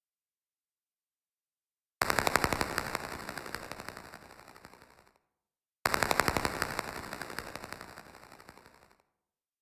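Sci-fi spaceship weapon sound effect: a rapid-fire gun burst of about eight to ten shots a second that fades away over about three seconds. It plays twice.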